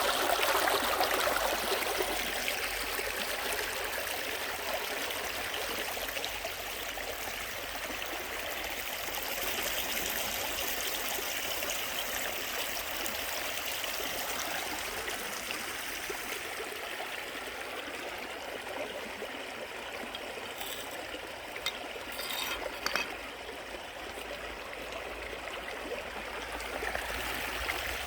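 Mountain valley stream flowing over rocks, a steady rushing and trickling of water. A few brief clicks sound about three-quarters of the way through.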